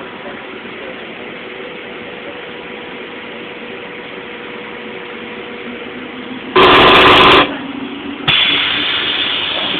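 Inside an SKM commuter train stopping at a station: a steady running hum with a faint tone, then a very loud blast lasting under a second about two-thirds of the way through, and a sudden steady rushing hiss from about eight seconds on.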